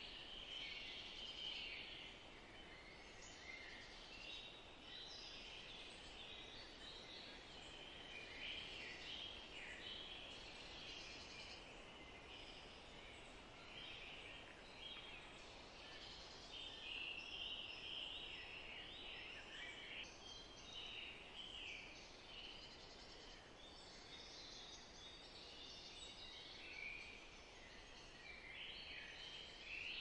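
Faint chorus of many small birds chirping and singing in a meadow, calls overlapping without pause, over a soft steady hiss.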